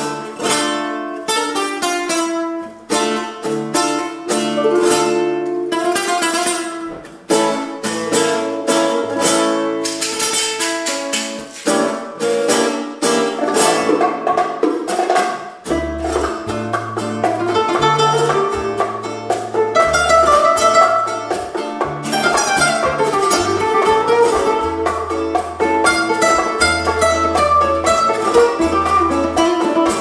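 Live acoustic band music: nylon-string guitars playing fast plucked flamenco-style lines over percussion. A bass guitar comes in with low notes about halfway through.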